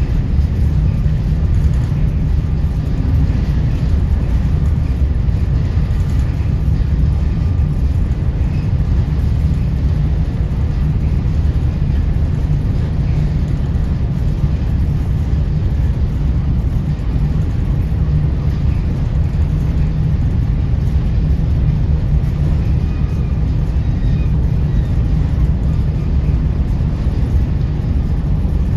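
Steady low rumble of a car ferry's engines and machinery, unchanging throughout.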